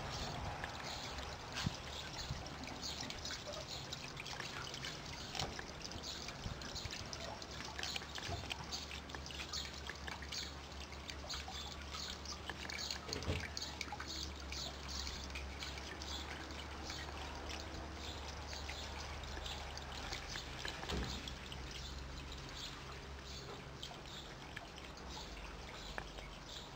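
Water trickling steadily, with many short high chirps and ticks scattered over it and a low rumble underneath.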